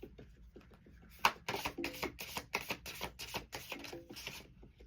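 A deck of oracle cards being shuffled by hand: a quick run of soft card slaps and clicks, about three or four a second, starting with a sharper snap about a second in and stopping shortly before the end.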